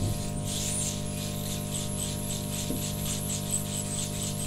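Hot air rework station blowing on a phone circuit board to reflow a BGA chip's solder: a steady hum with a fast, high-pitched pulsing.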